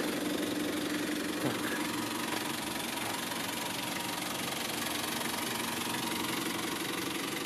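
Nissan Terrano's TD27ETi 2.7-litre four-cylinder turbo diesel idling steadily.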